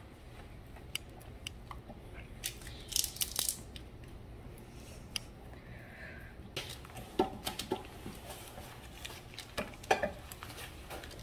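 Stick of butter in its paper wrapper rubbed over parchment paper lining a metal loaf pan: scattered soft rustles and scrapes with light knocks and clicks, over a faint low steady hum.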